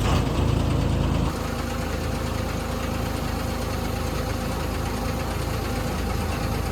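The R5 pile driver's engine, just started. It runs faster for about the first second, then drops and settles into a steady idle.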